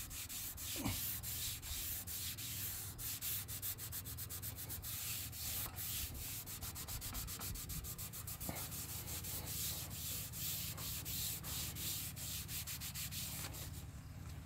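A cloth rag wet with paint thinner rubbed quickly back and forth along a painted railing, a rapid rhythmic scrubbing hiss as it lifts old masking-tape residue. The rubbing stops near the end.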